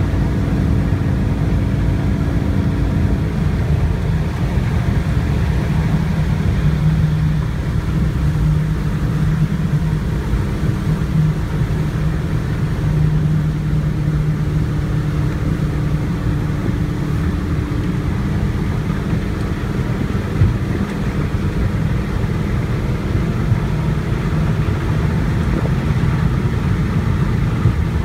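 Engine of a small aluminium motorboat running steadily under way, a loud continuous drone.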